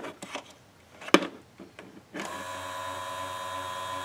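A sharp click about a second in, then about two seconds in the SD301 smoke leak detector's motor starts and runs steadily with a constant whine.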